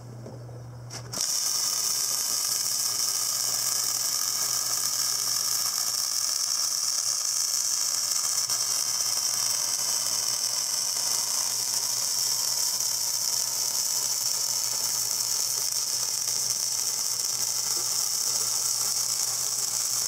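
Electric arc welding a repair bead on a steel sprayer wheel rim: the arc strikes suddenly about a second in, after a low machine hum, and then runs as a loud, steady, even hiss.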